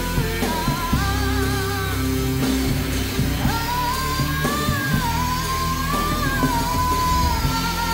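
Live band music over a loud PA: a drum kit and a dense low end under a wavering sung melody line.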